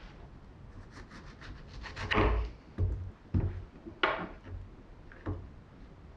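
Handling sounds of kitchen things on wood: a run of small clicks, then a handful of knocks and scrapes on a wooden surface, the loudest about two seconds in and the last a single tap about five seconds in.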